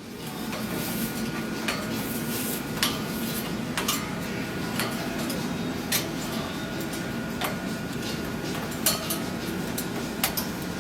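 Scarlet macaw climbing on a metal cage: scattered sharp clicks and clinks, about eight in ten seconds, over steady room noise.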